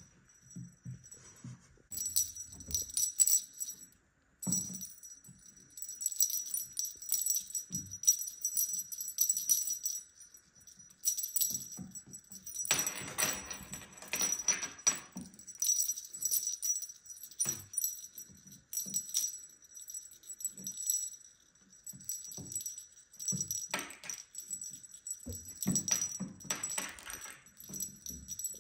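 Small bell on a feather wand cat toy jingling in repeated bursts as kittens bat at and bite it, with soft knocks of paws on a tabletop between the jingles.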